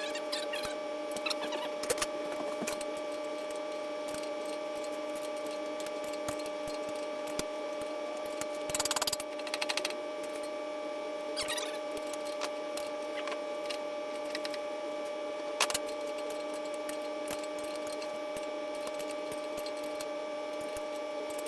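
A mini excavator's engine and hydraulics run with a steady hum, while metal clicks and rattles come from a wrench on the quick coupler's adjuster bolt, with a short quick run of clicks about nine seconds in.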